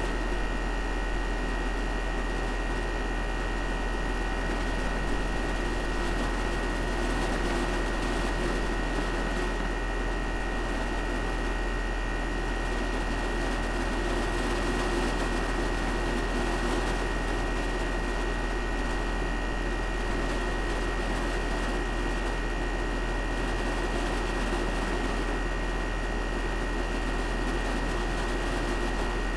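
Carrier outdoor air-conditioning condenser unit running steadily: a constant low hum with a fan whoosh and a thin steady whine high above it.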